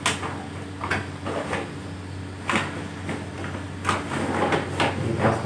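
Plastic AC cleaning cover rustling and scraping in short, irregular bursts as it is tucked under the lower edge of a wall-mounted split air-conditioner indoor unit. A steady low hum sits underneath.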